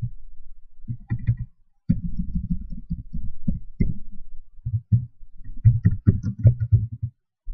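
Computer keyboard keys tapped in quick irregular runs, mostly the backspace key deleting text, with a short pause just before two seconds in; the tapping stops shortly before the end.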